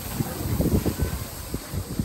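Wind buffeting the microphone in uneven gusts, with low irregular rumbling.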